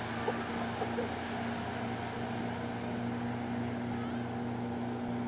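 Motorboat engine running steadily at speed with a constant low hum while towing an inflatable tube, over a rush of wind and water.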